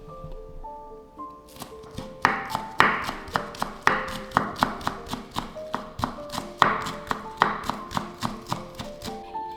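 Kitchen knife chopping on a cutting board in quick, even strokes, about three a second, starting about a second and a half in, over gentle background music.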